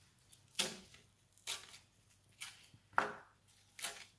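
Chef's knife chopping fresh parsley on a plastic cutting board: five separate chops, roughly one a second.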